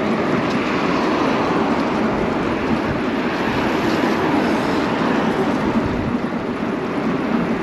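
Steady rush of wind buffeting the microphone of a handlebar-mounted camera while riding an e-bike along a road, mixed with tyre and road noise.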